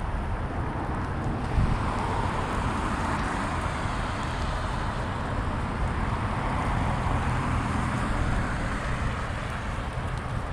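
Cars passing on a street: tyre and road noise swelling and fading with no distinct engine note.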